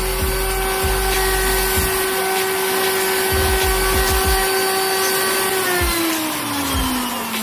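CNC router spindle running at a steady high-pitched whine, then spinning down after about five and a half seconds, its pitch falling steadily.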